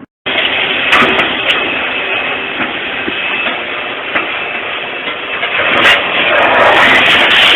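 A heavy engine running, with scattered knocks and clatter over it, starting abruptly and growing louder near the end.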